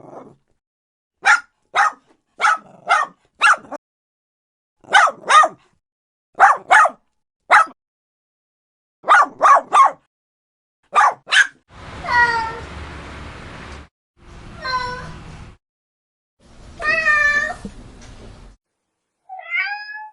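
A dog barking in quick groups of one to four sharp barks, then, about twelve seconds in, a cat meowing: three long, drawn-out meows and a shorter one near the end.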